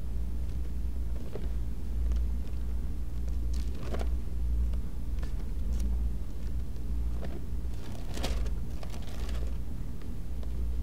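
Steady low room hum, with a few soft rustles about four and eight seconds in, likely Bible pages being turned on a pulpit.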